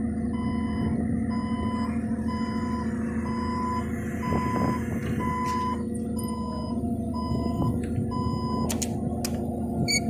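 Forklift engine running steadily while its warning beeper sounds a regular high beep about one and a half times a second, stopping near the end. A few sharp clicks come through.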